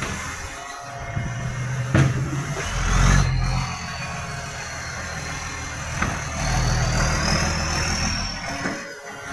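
Garbage truck's diesel engine running loud through a leaking exhaust, with a low rumble that swells twice. Sharp clicks about two and six seconds in, and a thin high whine that rises and falls through the second half.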